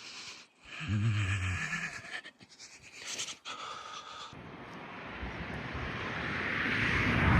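A vehicle approaching on the road, its noise rising steadily over the last three seconds. About a second in, a brief low pitched sound.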